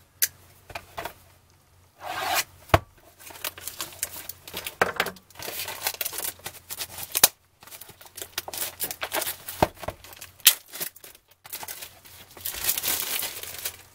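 Plastic shrink wrap on a cardboard box crinkling and tearing as it is pulled off, in irregular rustling bursts with a few sharp snaps.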